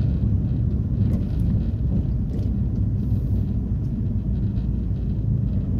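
Steady low rumble of a car driving along a town street, heard from inside the cabin.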